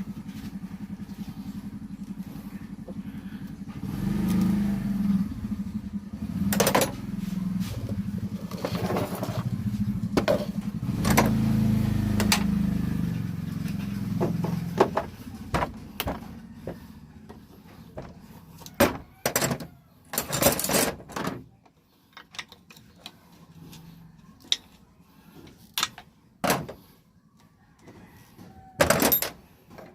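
A vehicle engine runs with its pitch rising and falling for about fifteen seconds, then fades out. After that come scattered sharp knocks and clicks, the loudest about a second before the end.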